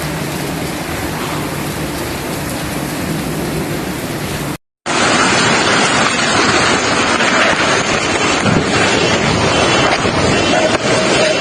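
Heavy rain with strong wind rushing over the microphone, a dense steady hiss. About four and a half seconds in there is an abrupt cut with a split-second dropout, then a louder, harsher stretch of the same rain and wind.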